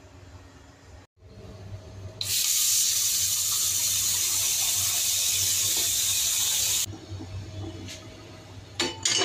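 Kitchen tap running into a stainless-steel saucepan, a steady gush of water filling the pot for about four and a half seconds before it is turned off. A couple of sharp knocks near the end.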